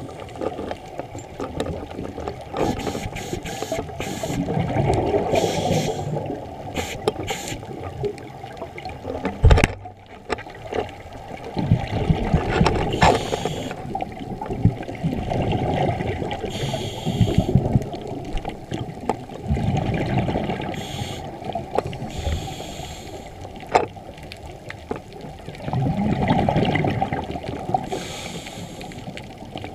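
Scuba divers' exhaled regulator bubbles heard underwater: bubbling bursts every few seconds over a muffled, rumbling water noise.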